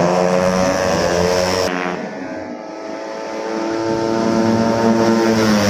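Tuned 130cc automatic racing scooters' engines running at high revs as scooters pass through a corner; about two seconds in the sound cuts abruptly, dips, then builds again with slowly rising pitch as another scooter approaches.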